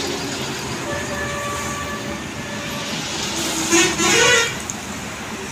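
Sliced onions sizzling in hot oil in a steel kadai, with a vehicle horn sounding loudly for about a second, a little over three and a half seconds in.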